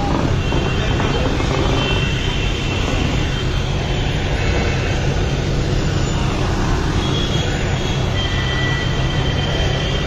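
Steady low engine drone mixed with road-traffic noise, with a few faint high-pitched tones now and then.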